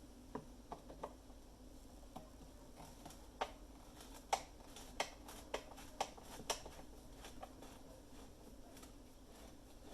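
Light, sharp clicks and taps of espresso machine parts being handled, scattered irregularly and thickest in the middle of the stretch, over a faint steady hum.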